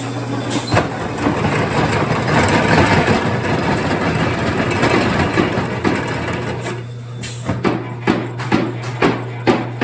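Euroform panel cleaning machine running with a steady low hum while its cutter blades and brushes scrape a steel form panel, then a series of sharp metallic knocks, about two a second, near the end.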